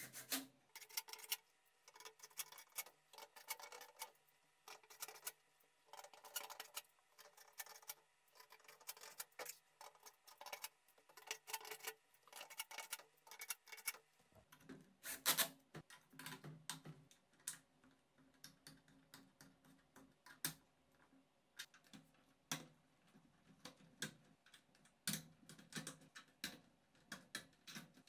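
A long run of light, irregular clicks and taps as black 3D-printed plastic brackets, screws and threaded knobs are handled and fitted onto wooden dowels. The taps get fuller and lower about halfway through.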